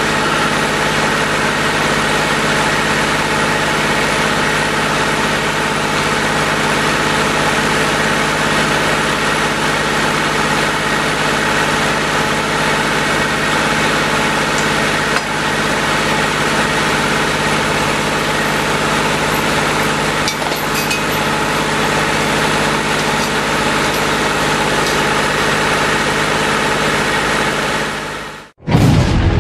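Tractor engine running steadily while it drives a log splitter, with a few faint knocks. The engine sound cuts off abruptly near the end.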